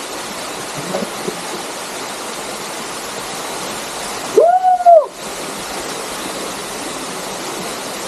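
Steady rush of a waterfall and its stream. About four and a half seconds in, a single loud call cuts through, about half a second long, rising then falling in pitch.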